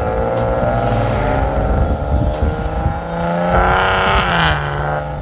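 2015 Maserati Ghibli SQ4's twin-turbo V6 through its stock exhaust, heard close at the tailpipes, accelerating in Sport Mode. The revs climb steadily, rise harder about three and a half seconds in, then drop sharply near the end.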